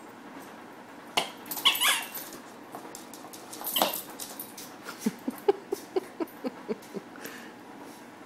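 A small dog playing with a rubber chicken squeaky toy: a few loud squeaks and scuffles in the first half, then a quick run of short squeaks, about four a second, as it chews the toy.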